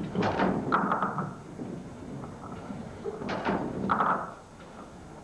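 Clatter in a candlepin bowling alley: two sharp knocks with a short ringing after each, about three seconds apart, over the steady murmur of the hall.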